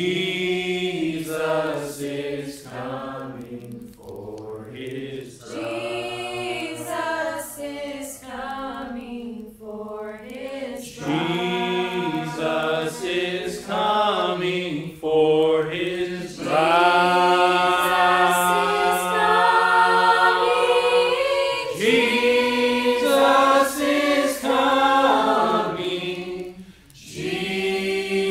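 Group singing a slow worship song, the voices drawing out long notes, with the longest held note a little past halfway.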